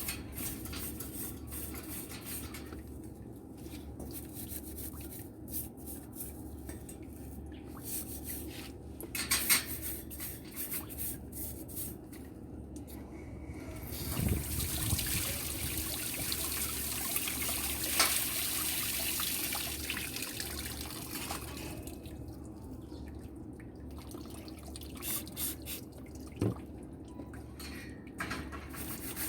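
Tap water running and dripping at a sink while barbecue grills are washed, with scattered small knocks and clicks. The water runs harder for several seconds in the middle, then eases back to dripping and trickling.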